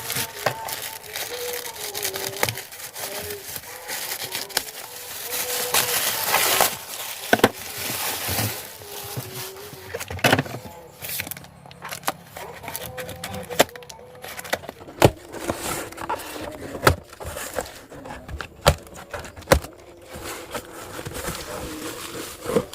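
Packaging being handled and unwrapped: crinkling and rustling at first, then a scattering of sharp clicks and knocks.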